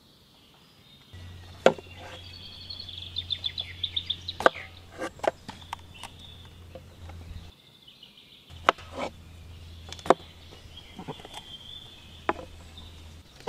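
Large kitchen knife slicing bell peppers on a wooden cutting board: irregular sharp knocks of the blade hitting the board, a few louder strikes standing out. A high, rapid chirping trill runs in the background at times.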